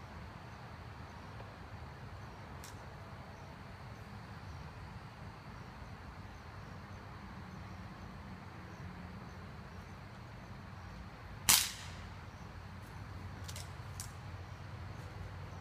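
Crosman Quest break-barrel spring-piston air rifle firing a single sharp shot about three-quarters of the way in, followed by a couple of faint clicks.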